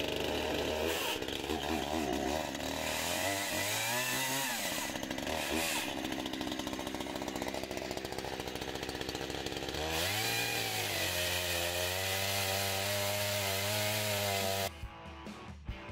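Two-stroke petrol chainsaw running and cutting into an oak round, its engine pitch dipping and rising twice as it is revved. Near the end it cuts off and guitar music comes in.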